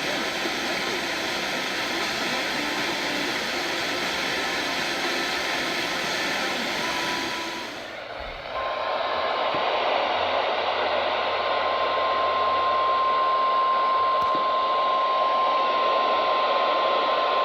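Radio static hiss for about eight seconds, then a loud, steady single-pitch alert tone held for about nine seconds over fainter hiss: an emergency alert attention tone that comes before a weather warning message.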